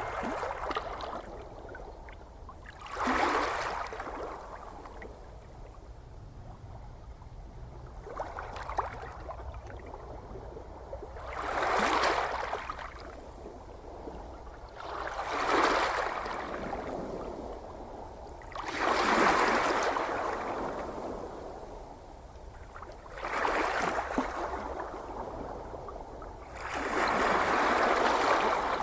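Ocean waves washing in over a steady low rumble, a rush of surf swelling and fading about every three to four seconds, six or seven times.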